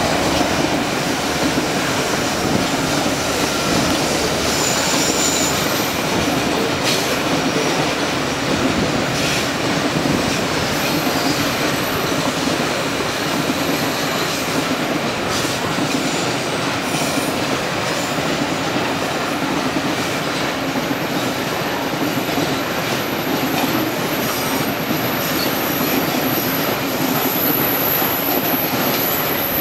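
A long train of steel coal hopper wagons rolling past on a curve: a steady rumble of wheels on rail with occasional clacks. High-pitched wheel squeal comes and goes, with a thin squeal held from about halfway through.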